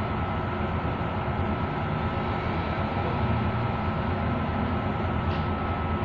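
A 15 kg washing machine spinning in its high-speed extraction stage, with a steady low rumble and a thin steady high whine.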